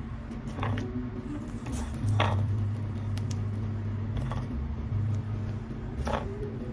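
Slime being handled and squished, making a few brief squelches over a steady low rumble.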